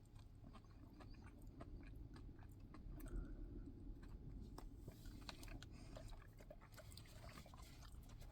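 A person chewing a mouthful of food, faint, with soft irregular mouth clicks.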